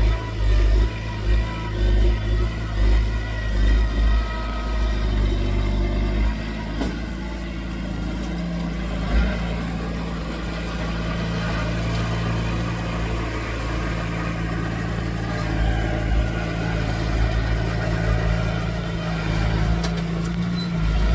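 Diesel engine of heavy earthmoving machinery running under work, the first several seconds pulsing unevenly, then steadier with the engine pitch changing a few times.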